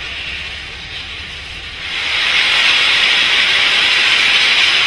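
Ballast hopper wagons of a railway work train rolling past with a steady hissing rush that grows louder about two seconds in.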